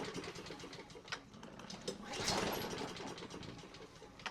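Honda lawn mower engine turned over by its recoil pull-starter, twice, whirring and rattling without firing. It has no fuel, only a shot of carburettor cleaner, and the engine is later found to have zero compression.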